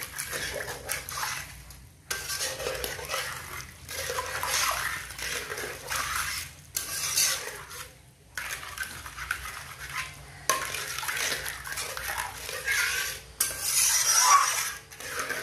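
Metal spatula stirring and scraping through a wet masala gravy in a large metal kadhai, with the liquid sloshing against the pan, as water is mixed into the fried mustard paste. The stirring comes in several stretches broken by brief silent gaps.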